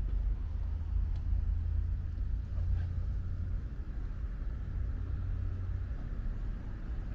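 Light rain ambience with a steady low rumble underneath and a few faint ticks.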